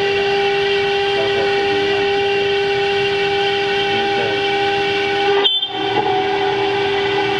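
Stone CNC router's spindle cutting 15 mm marble, a loud steady whine with a strong held pitch. The sound breaks off briefly about five and a half seconds in and then carries on.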